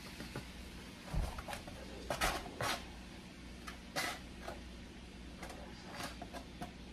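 A knife scraping and tapping against a plate as the last of the chopped food is pushed off into a wok: a string of short, sharp scrapes and clicks, loudest a couple of seconds in, over a low steady hum.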